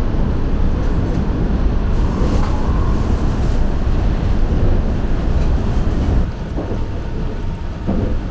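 Running noise of the Saphir Odoriko, an E261 series electric train, heard from inside a passenger car: a steady low rumble of the train on the track that drops noticeably about six seconds in.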